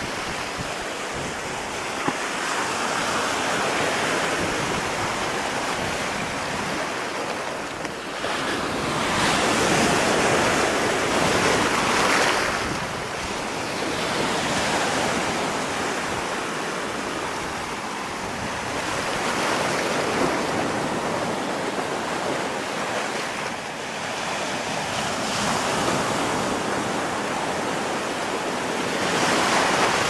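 Rough Black Sea surf breaking and washing up the beach, a continuous rush of water that swells and eases as each wave comes in, loudest about a third of the way through.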